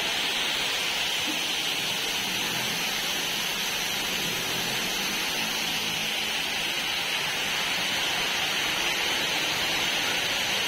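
Water pouring down a water-wall fountain and splashing into its basin, a steady rushing hiss.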